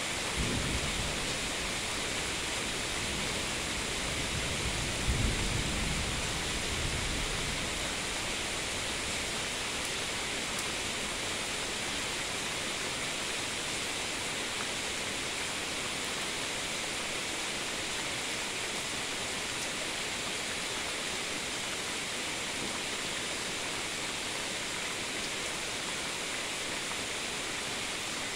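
Steady rain hiss during a thunderstorm, with low rumbles of distant thunder twice in the first several seconds, the second one longer.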